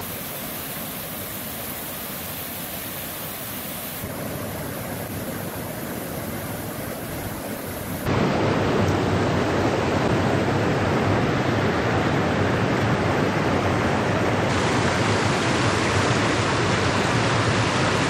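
Creek water rushing over shallow rock ledges in small cascades, a steady rush that gets louder about eight seconds in.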